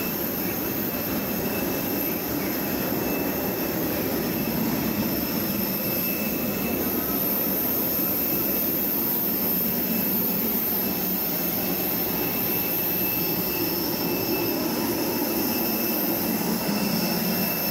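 Jet aircraft engine noise: a steady, unchanging rumble with a constant high-pitched whine over it.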